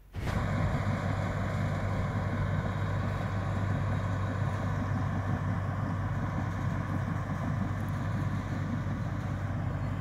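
Tracked bulldozer's diesel engine running steadily as it works, a low even drone with a strong steady hum. It comes in abruptly at the start.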